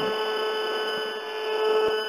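Demodulated audio from an Acoustimeter broadband RF meter picking up a mix of pulsed microwave signals from mobile phone masts, Wi-Fi and DECT cordless phones. It is a steady buzzing drone of several held tones over hiss, with a couple of faint clicks.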